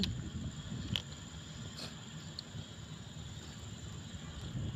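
Persian cat chewing dry kibble from a foil tray, with a few faint crunches over a low rumble on the microphone and a faint steady high whine.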